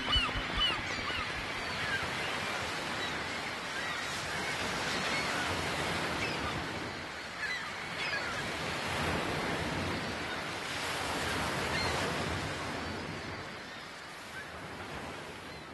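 Sea waves washing in slow swells, dying away near the end.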